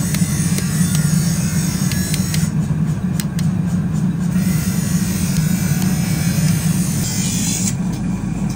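Steady low mechanical rumble, like a running motor or machinery, with a few faint clicks in the first few seconds.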